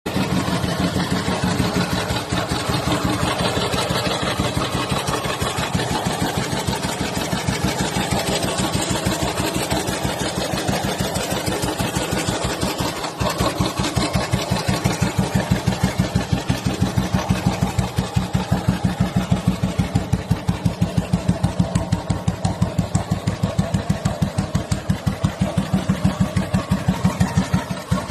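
Ariel Twinport 500 single-cylinder motorcycle engine idling with an even, regular exhaust beat. It gets louder and the beats stand out more about halfway through.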